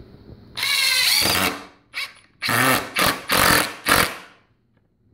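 Ridgid GEN5X 18-volt brushless cordless impact driver driving a screw into a wooden board in several trigger pulls: a first run of about a second with the pitch rising, then a quick blip and four shorter bursts, stopping about a second before the end.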